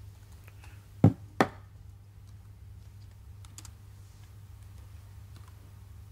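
Laptop keyboard typing, faint scattered keystroke clicks over a steady low hum. About a second in come two sharp, loud knocks a third of a second apart, the loudest sounds present.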